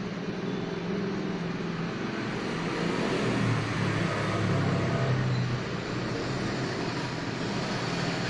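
Steady background noise of road traffic, with a low engine hum that swells a few seconds in.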